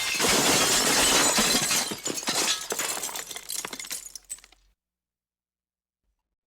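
Glass shattering: a loud crash full of sharp clinks that thins out and dies away over about four seconds, then cuts to dead silence.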